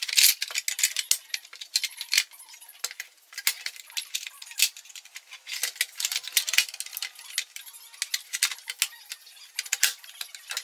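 Plastic housing of a small IKEA SY sewing machine being handled and fitted together: a dense run of irregular clicks, knocks and rattles.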